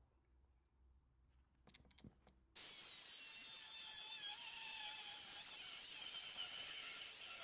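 Angle grinder with a thin cut-off disc cutting through steel bar stock clamped in a vise: a loud, high grinding hiss over a steady whine, starting abruptly about two and a half seconds in. A few faint clicks come just before it.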